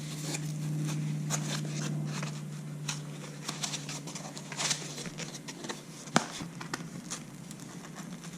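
Irregular light clicks and taps of hand tools and metal parts being handled, with one sharper click about six seconds in, over a faint steady low hum that fades out.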